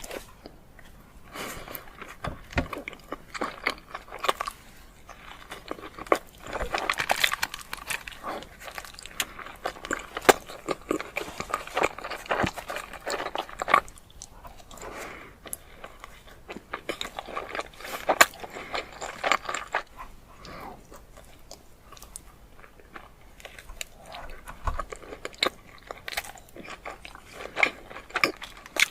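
Close-miked eating of chilli cheese dogs: repeated bites and chewing, with many short, sharp mouth clicks.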